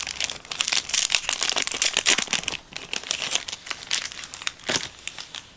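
Foil wrappers of Yu-Gi-Oh booster packs crinkling and rustling as they are handled among the cards. Dense crackle for the first two and a half seconds, then it thins out to scattered crinkles, with one louder crinkle near the end.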